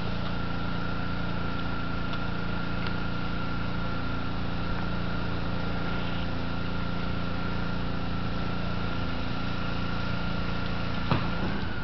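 Steady mechanical hum with a constant high whine, like a motor running; a short knock about eleven seconds in.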